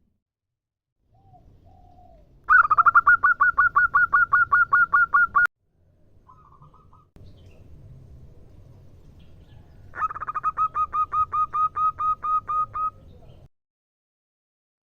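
Female zebra dove (perkutut) calling: two rapid runs of short, evenly spaced cooing notes, about seven a second. Each run lasts about three seconds, the first starting about two and a half seconds in and the second about ten seconds in, with a few faint short notes between.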